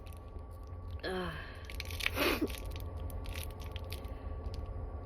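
A woman's short voiced catch of breath about a second in, then an induced sneeze about two seconds in, over a steady low rumble.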